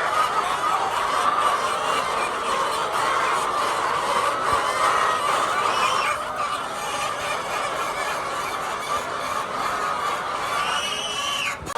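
A flock of laying hens clucking and calling together in a steady, dense chorus, with a few louder individual calls standing out near the middle and near the end.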